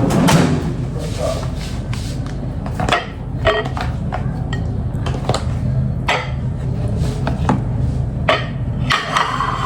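Irregular knocks and clinks of kitchenware, about one a second, over a steady low hum.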